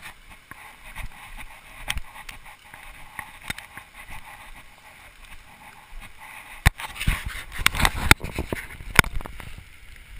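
Footsteps and rustling in dry leaf litter on a forest trail, with light scattered clicks. About two-thirds of the way in comes a cluster of sharp knocks and scrapes as the camera is handled.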